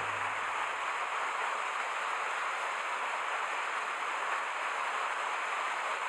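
Small mountain-stream waterfall pouring into a rock pool: a steady, even rush of falling water.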